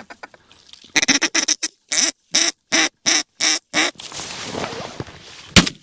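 Duck quacking: a quick flurry of quacks, then a run of six evenly spaced quacks at about three a second. A rustling noise follows, with one sharp click near the end.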